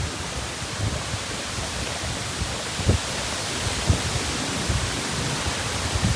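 Hurricane-force wind rushing steadily, with gusts buffeting the microphone in uneven low rumbles.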